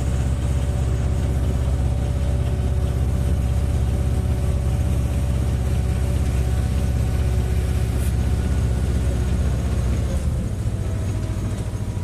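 Tractor engine running steadily while towing a loaded trailer, heard from the trailer. It eases off to a lower note about ten seconds in.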